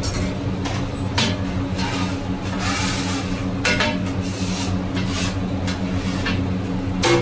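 Kitchen clatter at a flat steel griddle: china plates knocking as they are stacked and a metal spatula scraping and tapping on the griddle, with a sharp clatter near the end, over a steady low hum.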